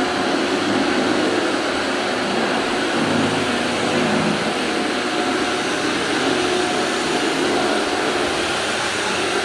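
Steady whooshing noise of a running machine, such as an electric blower motor, with a faint hum underneath.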